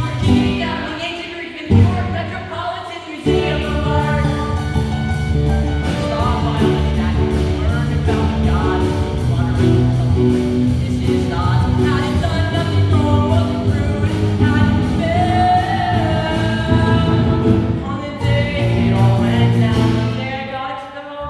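Rock-style musical theatre number: singers over a band accompaniment with a steady bass line and drum beat, briefly dropping out about two and three seconds in.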